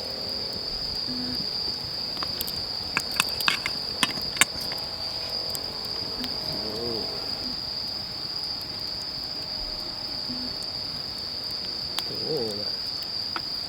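Insects trilling in one steady, unbroken high note, with a few sharp clicks about three to four and a half seconds in.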